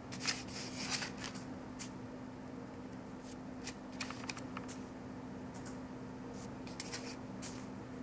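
Paintbrush bristles scratching across paper in short strokes, coming in several quick bursts.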